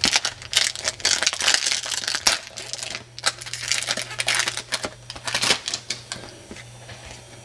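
Football trading cards being handled and flipped through, a dense run of quick card snaps and paper rustles that eases off after about six seconds.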